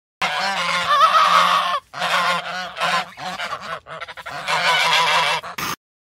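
Large waterfowl honking, several overlapping calls at once, with a short break about two seconds in, cutting off abruptly just before the end.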